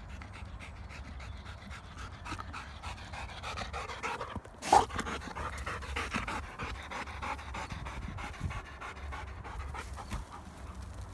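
A labrador retriever panting steadily, in short even breaths. About four and a half seconds in there is one sharp, loud knock.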